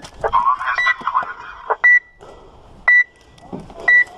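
Electronic bomb prop used in airsoft games, beeping a short high tone about once a second.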